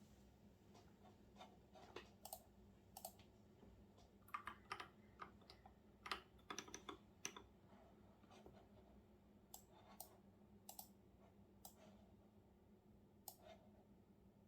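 Faint typing on a computer keyboard: irregular keystroke clicks, coming in quick runs around the middle and sparser toward the end.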